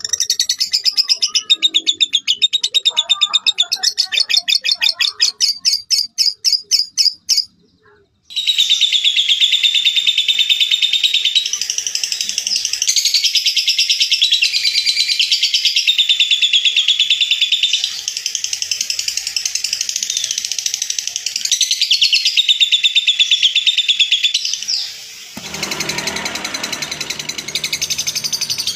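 Lovebirds giving the 'ngekek' call: long, rapid, high-pitched chattering trills. The first trill comes in quick separate strokes and breaks off about 7 s in. After a moment's silence, one unbroken trill runs for about 17 seconds. Near the end a trill continues over a rougher background noise.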